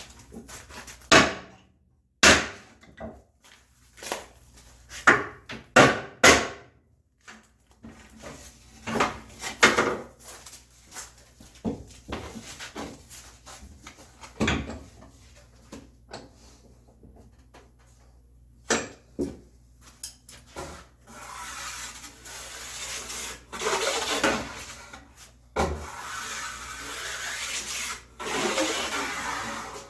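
Hand plane cutting a chamfer along the edge of a shiplap board: a run of short, sharp strokes and knocks, then, about two-thirds of the way in, longer steady shaving passes of the blade along the wood.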